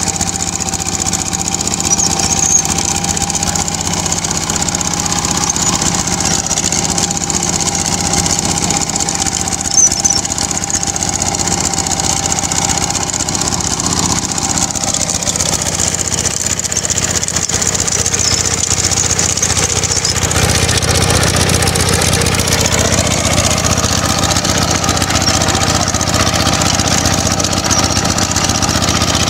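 Kubota K75 hand tractor's single-cylinder diesel engine running steadily under load as it drives a rotary tiller through dry soil. It grows somewhat louder and fuller from about twenty seconds in.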